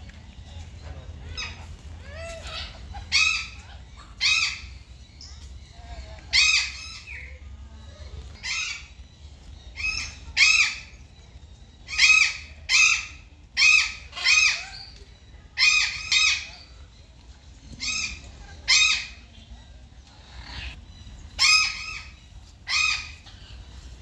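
Indian peafowl calling: a run of short, loud calls, many coming in quick pairs less than a second apart, about fifteen in all.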